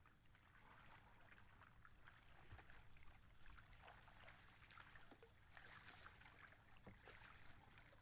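Near silence: faint open-air background with a few soft, scattered ticks.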